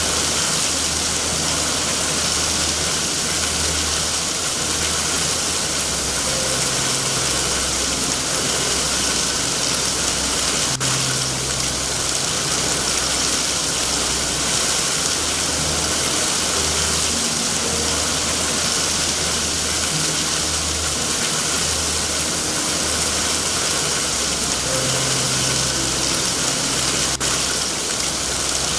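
Steady heavy rain, a constant hiss, with an uneven low rumble coming and going beneath it and two faint sharp clicks.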